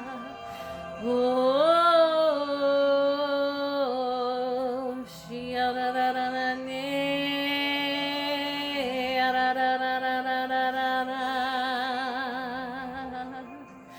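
A solo voice singing in the spirit: long wordless held notes with vibrato, stepping up in pitch about a second in, with a brief break near the middle and fading toward the end.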